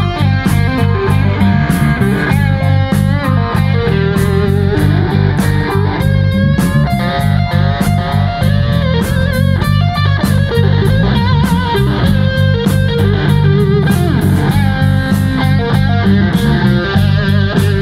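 Live band playing amplified: an electric guitar plays a lead line with bent and wavering notes over bass and a steady drum beat with cymbals.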